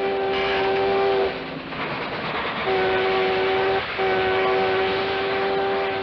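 Cartoon steam locomotive whistle blowing three long chord-like blasts over the steady noise of the running train.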